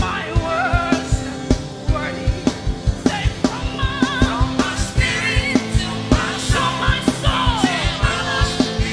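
A band playing an upbeat worship song over a fast, steady drum beat, with a lead singer's voice sliding and bending through the melody.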